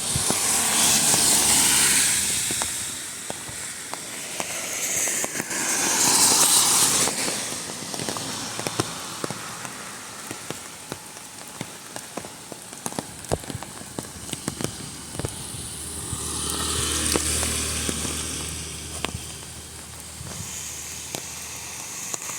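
Monsoon rain with many sharp drop ticks and crackles, over a rushing hiss of rain and flowing water that swells loudest in the first two seconds, again about six seconds in, and again around seventeen seconds in.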